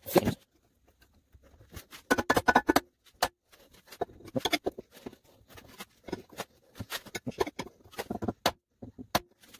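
Irregular sharp metal knocks and taps from forcing a small engine's flywheel off its crankshaft, with a dense run of strikes about two seconds in.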